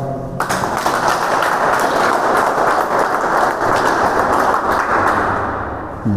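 Audience applauding, beginning about half a second in and fading away near the end.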